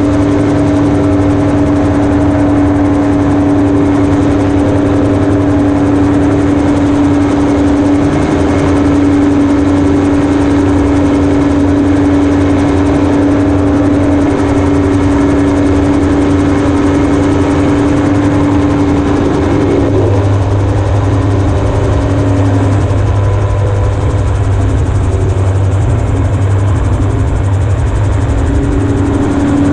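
In-flight sound of a single-seat amphibious gyroplane, heard from on board: its Yamaha RX1 four-cylinder four-stroke engine driving the pusher propeller, with the rotor turning overhead, a steady loud drone with a clear pitched note. About two-thirds of the way through the note shifts and the sound turns lower and rougher. The original note comes back near the end.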